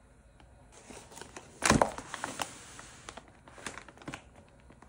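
Plastic meal-kit packaging crinkling and rustling as the packs are handled and moved, with a sharp knock about a second and a half in and a few smaller clicks near the end.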